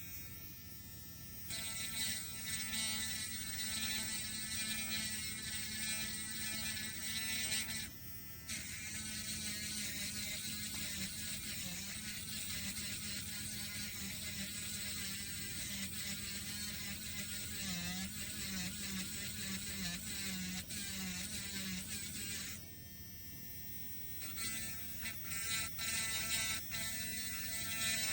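Cordless electric nail drill running, a steady high buzzing whine that steps to a different pitch a second or so in, again at about eight seconds and near the end. Through the middle stretch the whine wavers unevenly in pitch.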